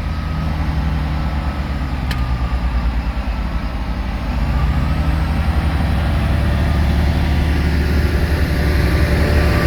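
Class 158 diesel multiple unit pulling away, heard from on board: its diesel engine gives a steady low drone that grows louder from about halfway through as the train picks up speed. A single sharp click about two seconds in.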